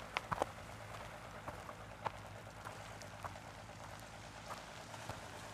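Faint footsteps crunching on gravel, a quick cluster at first and then single steps about every half second, over a low steady outdoor hiss.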